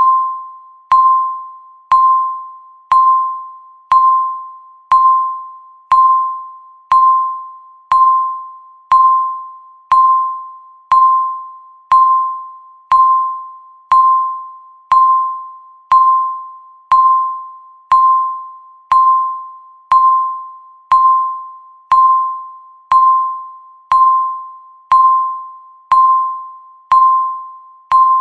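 Countdown timer beeping once a second: each beep is one clear, bell-like tone that starts sharply and fades away before the next, in an even, unbroken rhythm.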